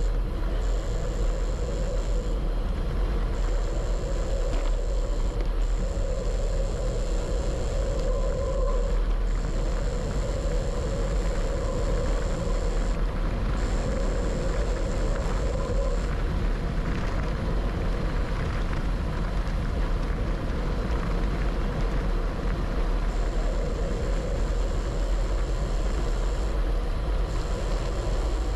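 Wind rushing over a handlebar-mounted camera's microphone on a fast road-bike descent, a steady low rumble. A thin high whine runs along with it, dropping out briefly several times.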